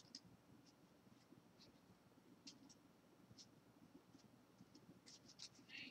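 Near silence with faint, scattered ticks and rustles of a pack of baseball trading cards and its wrapper being handled, a little busier near the end.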